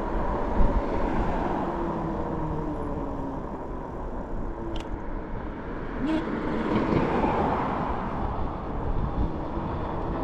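Wind rushing over the microphone with the rolling road noise of a fat-tyre e-bike as it slows through a turn, with two sharp clicks near the middle.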